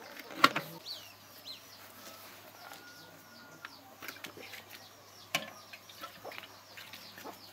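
Small birds chirping and chickens clucking over a quiet outdoor background, with a sharp knock about half a second in and a second, softer one a little after five seconds as the small petrol engine is handled and moved.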